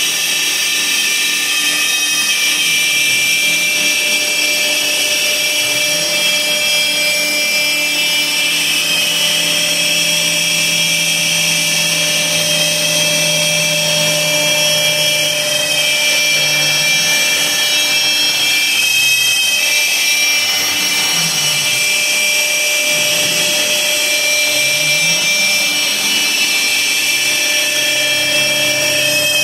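Laguna Swift CNC router cutting 1/2-inch plywood: a steady, high spindle whine over the rush of the cut. Under it the machine's drive motors hum, holding one pitch for long stretches, then rising and falling several times past the middle as the gantry changes speed and direction.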